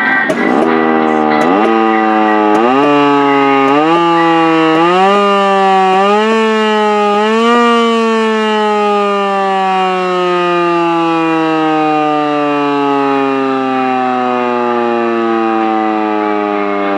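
Federal Signal electromechanical siren bumped up with about seven short bursts of power, its pitch climbing in steps. About 7–8 seconds in it is let go and winds down in one long, falling wail.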